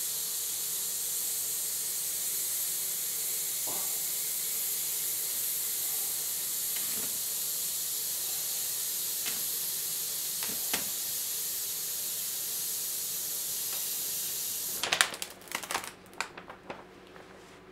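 A steady hiss with a few faint taps, cutting off suddenly about fifteen seconds in. Then comes a burst of crinkling and rustling as the paper backing of a vinyl cabinet decal is peeled back.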